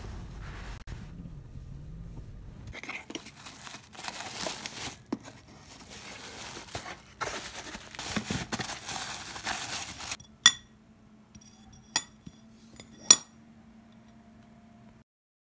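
Bubble wrap and packaging crinkling as raised ceramic cat bowls are unwrapped from a cardboard box, followed near the end by three sharp clinks a second or so apart as the bowls knock together or are set down.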